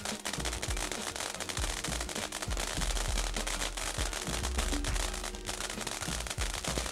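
Black Cat 'Great Barrier Reef' ground fountain firework spraying sparks with a steady hiss and a dense, rapid run of crackling pops.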